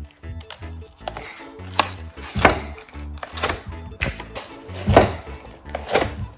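Toy packaging being torn open and crinkled in about six loud, rough strokes, over background music with a steady bass pattern.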